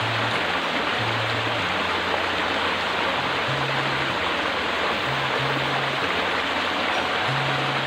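Steady rushing of a stream, with background music's low bass notes changing every second or so over it.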